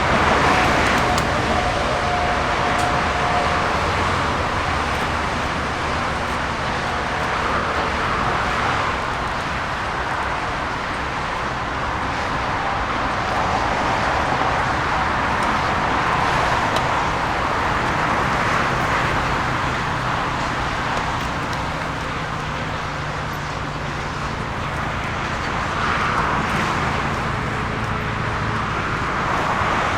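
Jet airliner engine noise: a steady, noisy rumble that swells and eases gently several times.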